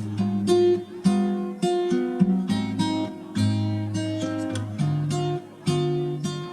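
Background music: acoustic guitar strumming and plucking chords in a lively rhythm.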